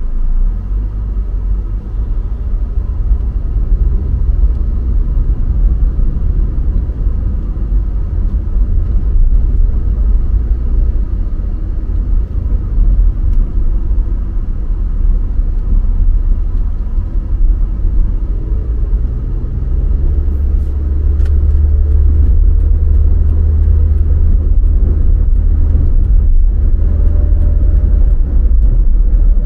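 Car driving on city roads: a steady, loud low rumble of engine and tyre noise that grows heavier about two-thirds of the way through.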